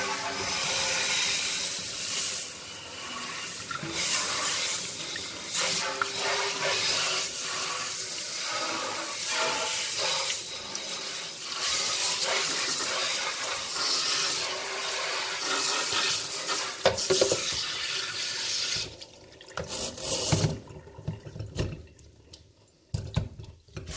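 Sink faucet running and water splashing around the basin as the sink is rinsed out after scrubbing. About nineteen seconds in, the steady flow stops, leaving a few short bursts of sound.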